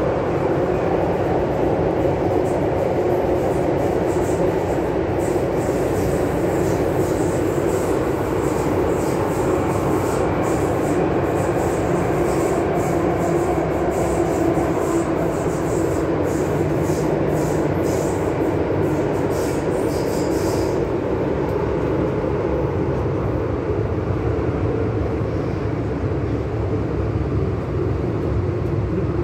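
Inside a Hong Kong MTR M-Train electric multiple unit running through the tunnel: a steady loud rumble of wheels on rail and running gear. Rapid sharp high clicks sound over it and stop suddenly about 21 seconds in.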